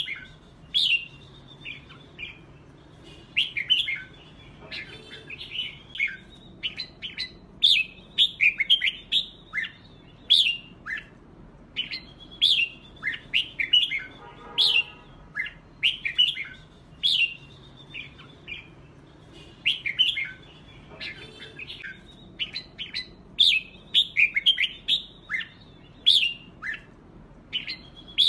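Red-whiskered bulbuls singing competitive 'fight' song: short, bright whistled phrases follow one another quickly, several a second, broken by brief pauses and a few harsher notes.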